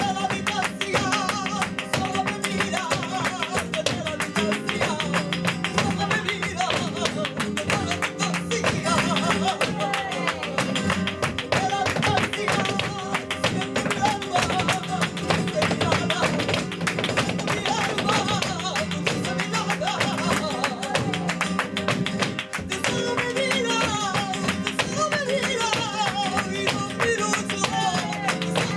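Sevillanas played live on flamenco guitar with a cante singer, over a dense run of sharp percussive strikes.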